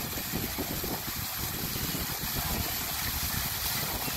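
Water of the Neptune Fountain splashing steadily into its basin, an even rushing noise with no breaks.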